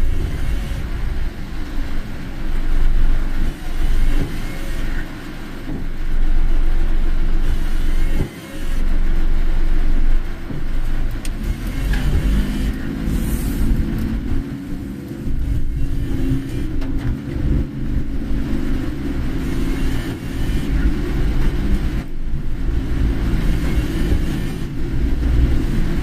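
A car being driven on rain-soaked roads, heard from inside the cabin: a steady low rumble of engine and tyres over a continuous hiss.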